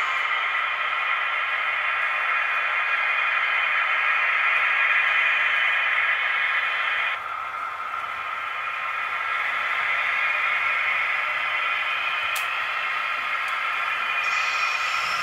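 H0-scale model trains running on the layout: a steady whirring rush of wheels and motors on the track. The sound changes abruptly about seven seconds in, with a brief click near the end.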